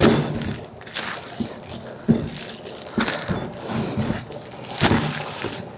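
Plastic cling film crinkling and rustling as it is pulled off its roll and pressed over dough, in about five irregular bursts.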